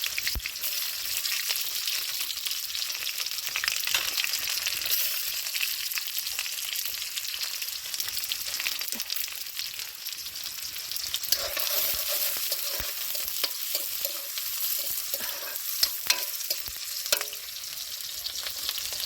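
Chopped vegetables frying in hot oil in a pan, sizzling steadily while being stirred, with occasional sharp clicks of the spoon against the pan, several of them near the end.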